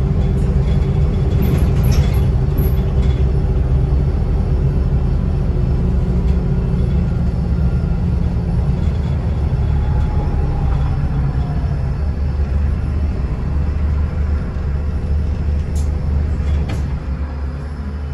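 Inside a moving bus: steady low rumble of the engine and road with a low droning hum. A couple of light rattles or clicks come near the end.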